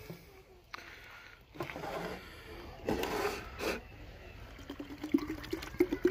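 Small knocks and clicks of bottles being handled on a table, thickening into a run of quick clicks near the end as the plastic bottle is brought up to the SodaStream soda maker.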